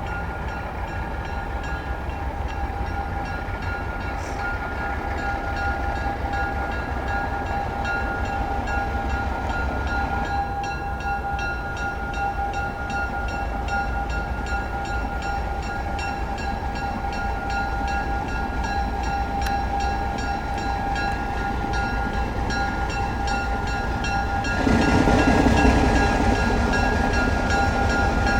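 Train running: a steady low rumble with several held tones over it, growing louder about 25 seconds in.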